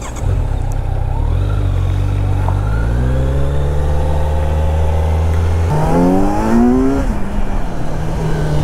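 Kawasaki Z900's inline-four engine pulling hard under acceleration, revs rising. They drop sharply at a gear change a little before six seconds in, climb again, and fall at another shift about seven seconds in.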